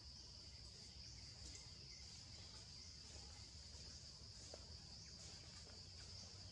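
Faint, steady high-pitched insect drone over a low background rumble.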